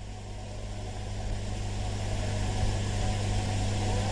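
Steady low electrical hum with an even hiss over it, slowly growing louder.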